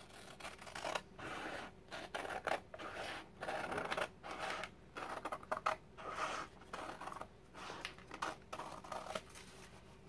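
Scissors trimming excess freezer paper from the edge of a fabric sheet, in a steady series of snips about three a second that stop shortly before the end.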